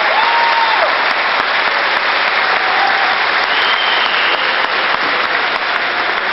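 Large audience applauding steadily and loudly, with a few cheers heard over the clapping.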